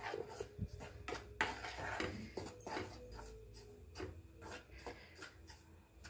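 Wooden spatula scraping and pushing ragi flour around a metal kadai, in irregular soft scrapes about one or two a second, as the flour dry-roasts.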